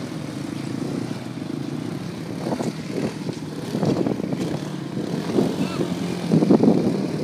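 ATV engine running steadily, with louder surges a few seconds in and again near the end.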